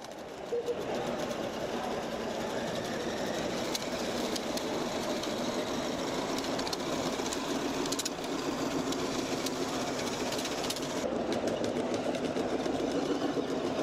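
Simulated engine sound from the sound module of a radio-controlled, 3D-printed giant LEGO bulldozer, running steadily as the model drives.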